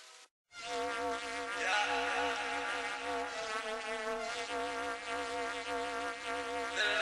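Faint end of a plucked-string outro, a moment of silence, then an instrumental intro starts: a stack of sustained synth tones that warble up and down in pitch, with a brighter layer joining a couple of seconds in.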